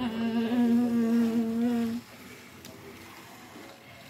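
A person humming one long steady note that stops abruptly about two seconds in, followed by faint room noise.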